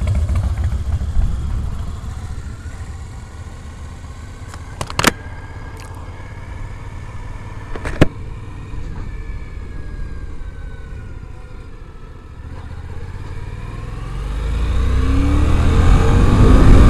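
Harley-Davidson V-twin motorcycle engine running loud at first, then fading over the first few seconds as it rides away. Two sharp clicks come about five and eight seconds in. Near the end, a Triumph America motorcycle's parallel-twin engine grows louder with rising pitch as it pulls away and accelerates.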